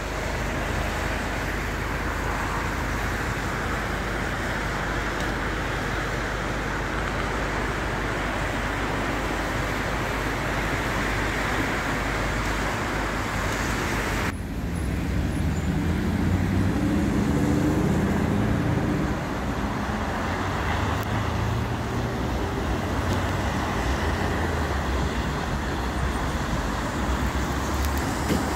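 Road traffic: a steady hiss of tyres and engines. About halfway through the sound changes abruptly, and a vehicle passes with a low engine rumble that swells and then fades.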